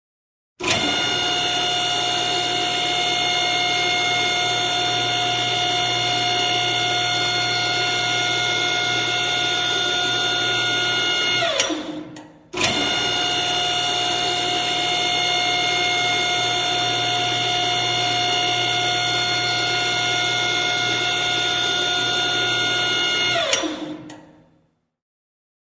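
Small electric motor whirring at a steady high pitch. About halfway through it winds down with a falling pitch and stops, then starts up again and winds down once more near the end.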